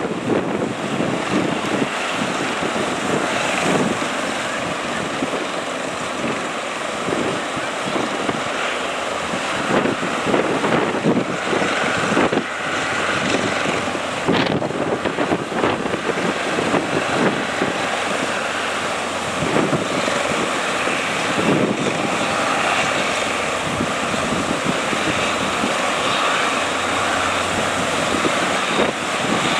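Strong wind buffeting the microphone in irregular gusts over the rush of breaking surf.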